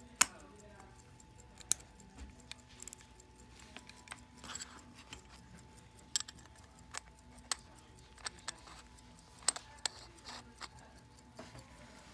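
Irregular sharp clicks and light metallic taps from a pocket watch and its metal case being handled, a dozen or so spread unevenly, the loudest just after the start and about nine and a half seconds in.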